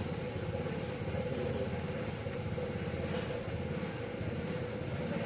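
Excavator diesel engine running steadily: a low, rapidly pulsing rumble with a steady hum above it.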